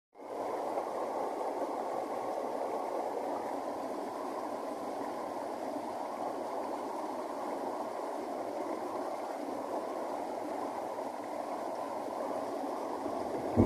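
Muddy stormwater runoff from heavy rain rushing fast down a ditch, a steady, unbroken flow.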